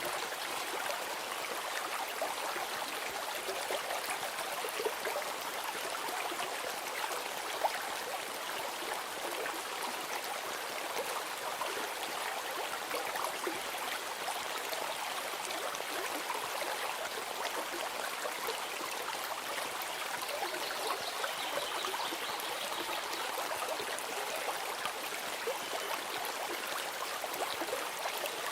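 A stream running steadily, an even rushing and trickling of water. A faint high note sounds briefly about two thirds of the way through.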